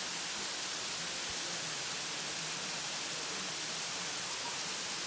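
Steady rushing hiss of a waterfall, water falling and spilling over rock.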